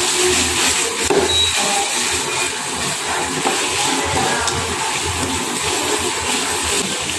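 Cubes of tuna steak sizzling steadily in hot oil and butter in a nonstick wok. In the second half they are tossed and stirred with two plastic spatulas.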